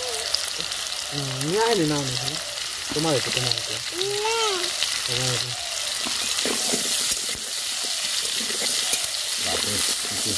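Potato chunks sizzling as they fry in hot oil in a steel wok. In the second half the sizzle grows louder and a metal spatula scrapes and clicks against the pan as they are stirred. A few short voice sounds are heard in the first half.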